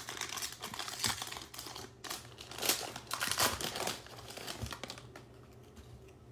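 Wrapper of an Absolute football trading-card pack crinkling and tearing as it is ripped open. It is loudest about three seconds in, then drops to faint clicks of the cards being handled.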